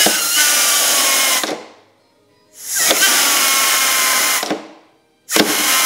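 Pneumatic retract nose gear of an RC jet model cycling on compressed air: three hissing bursts of air about two seconds each, each with a faint whistle that drops slightly in pitch.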